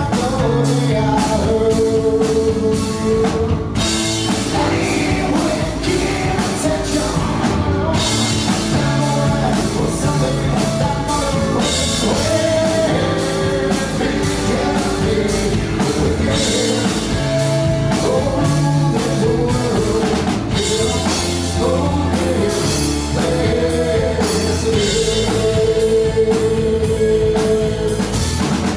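Live rock band playing: electric guitars, bass and drum kit, with a man singing lead vocals over them.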